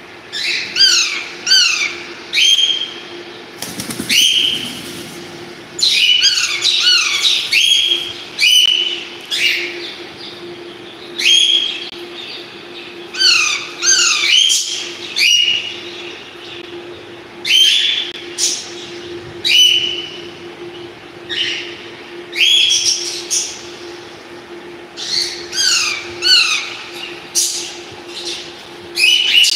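Pet parrots calling in repeated bursts of quick, falling chirps and squawks, a burst every second or two, over a steady low hum.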